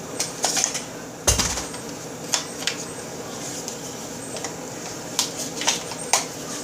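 Sharp clicks and clacks of plastic and metal as two magazines are pulled from a Smith & Wesson M&P FPC carbine, the loudest about a second in.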